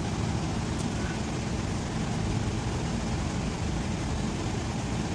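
Steady low rumble of background road traffic, with a faint tick about a second in.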